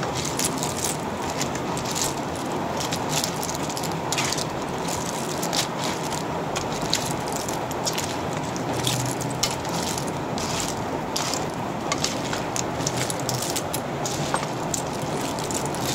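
Steady hiss with many small crackles: clams and malunggay leaves bubbling in a steaming wok, with heavy rain falling.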